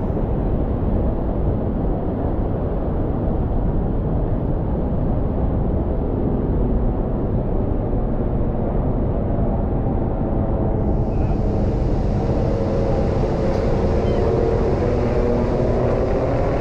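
Loud, steady roar of a waterfall at Niagara Falls, a dense rushing noise with no let-up.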